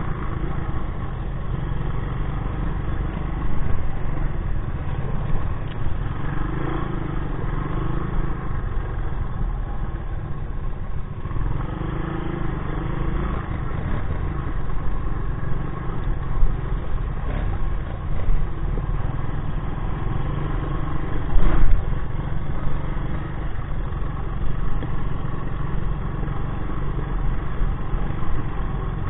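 1984 Honda 200S ATC's air-cooled single-cylinder four-stroke engine running steadily as it rides a rough dirt trail, its note rising and falling a little with the throttle. Knocks and clatter from the bumps come through now and then, the loudest about two-thirds of the way in.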